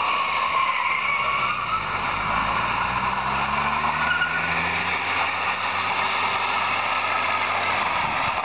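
A 1989 Ford Laser Ghia sliding on wooden boards placed under its rear wheels, the boards scraping steadily over the road while the engine runs. The engine note rises about three to four seconds in.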